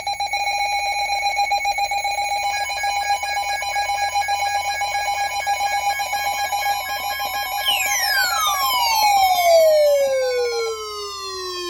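Synthetic electronic alarm tones: a steady warbling alarm tone with pulsed higher beeps joining a couple of seconds in, then a tone that sweeps steadily downward in pitch over the last few seconds.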